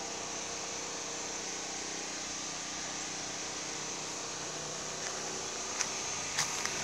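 Steady outdoor background noise with a faint, even low hum under it, and a few light clicks near the end.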